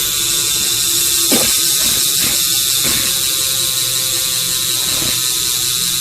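BMX rear hub freewheeling as the wheel spins in the air, its pawls ratcheting so fast that the clicks run together into a steady buzz, with a few separate clicks now and then.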